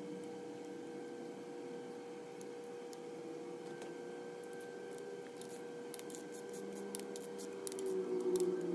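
Hand wrench on the oil pump bolts of a GM LS engine block, tightening them while feeler-gauge shims hold the pump gear centred in its housing. A run of light, quick metallic clicks begins about halfway through, with a knock at the end.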